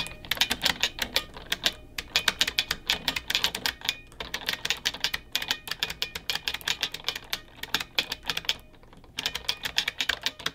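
Mechanical keyboard being typed on in fast runs of clacking keystrokes, broken by a few short pauses, the longest near the end.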